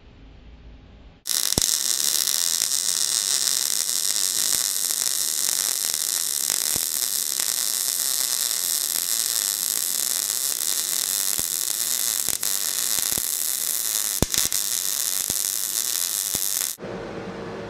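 Electric arc welding a steel shaft end into the weld-prep counterbore of a shrink-fitted crank web: a steady crackling hiss with a few sharp pops. It starts abruptly about a second in and cuts off suddenly near the end.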